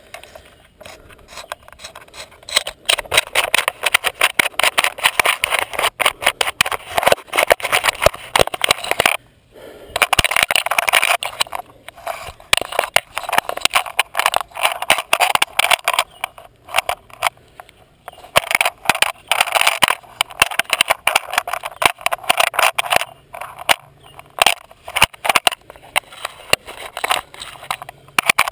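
Bicycle mini pump worked by hand against the wheel, a fast run of scraping, clicking strokes in bursts of a few seconds, broken by brief pauses.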